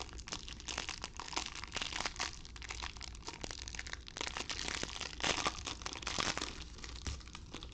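Clear plastic wrapper on a pack of trading cards crinkling and tearing as gloved hands pull it open: a run of crackles that gets louder about four seconds in.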